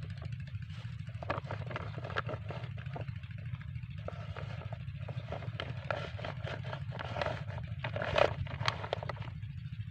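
Small diesel engine of a well water pump running steadily with a low hum. Over it, the plastic lay-flat delivery hose crinkles and crackles as it is lifted and handled, loudest about eight seconds in.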